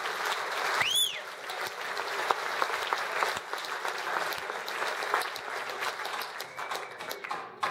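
Theatre audience applauding steadily, with a short rising-and-falling whistle from the crowd about a second in.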